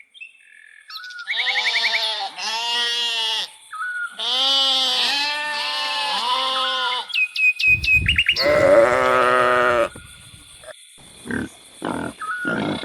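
Farm animals calling: two long wavering calls, then a louder, rougher call about eight seconds in, with quick high bird chirps in between and a run of short rhythmic sounds near the end.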